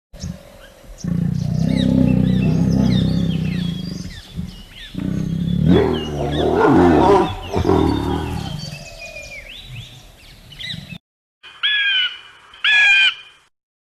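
Lion roaring in two long bouts, with small birds chirping in the background; it cuts off about eleven seconds in. Then come two short, sharp calls of a bird of prey.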